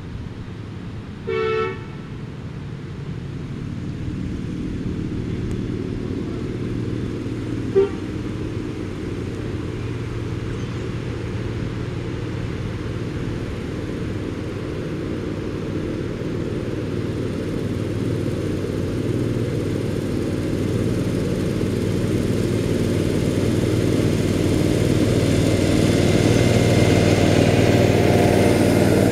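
A 1/8-scale ride-on miniature train approaching; its running sound grows steadily louder as it nears. A short horn toot sounds about a second and a half in, and a brief second toot near eight seconds.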